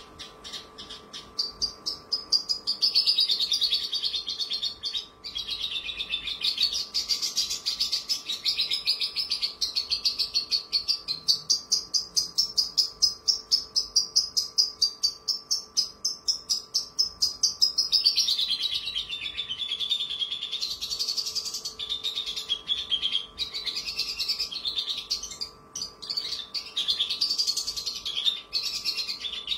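Javan bush lark (branjangan) singing a long, nearly unbroken song of rapid repeated high notes that waver up and down in pitch, growing loud about two seconds in.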